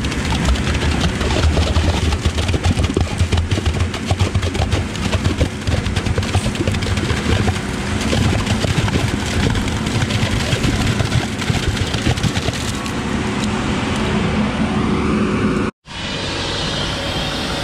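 Heavy truck engine running steadily with a dense low rumble and clatter, its pitch rising for a couple of seconds near the end before the sound cuts off abruptly for a moment.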